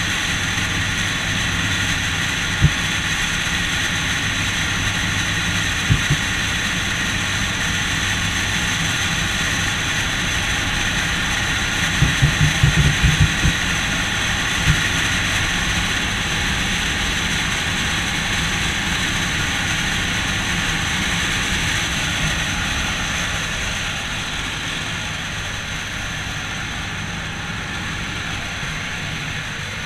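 Jump plane's engines running steadily, heard from inside the cabin, with a few knocks and a short cluster of bumps about halfway through. The engine noise eases a little near the end.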